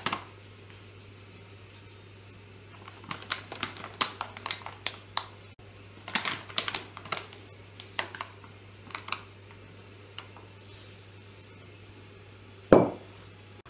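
Light clinks and taps of kitchen utensils on dishes, a run of them for several seconds, then one sharper knock near the end.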